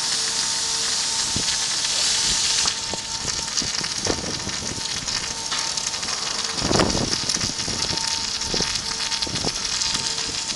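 Heavy rain hissing and pattering on hard surfaces, easing slightly about three seconds in, over a steady machine hum, with a single thump about seven seconds in.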